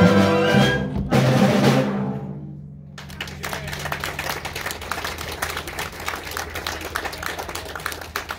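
Concert band of brass, woodwinds and percussion holding its closing chord, cut off by a final drum hit about a second in that rings away. Audience applause follows from about three seconds in.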